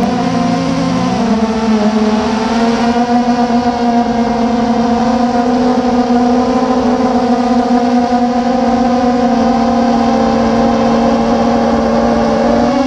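Quadcopter drone's electric motors and propellers whining in flight, a steady pitched whine that dips briefly in pitch and comes back up about a second in.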